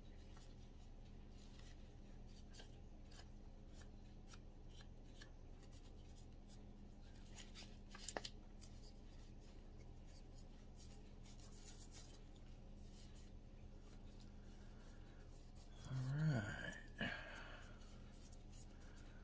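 Faint rubbing and handling as a microfiber cloth wipes down a pistol frame and barrel, over a steady low hum. A single knock comes about eight seconds in, and a short bit of voice near the end.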